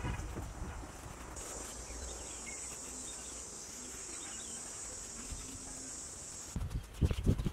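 A steady, high-pitched insect drone starts about a second in and cuts off near the end, where a run of louder, irregular low thumps and scuffs takes over.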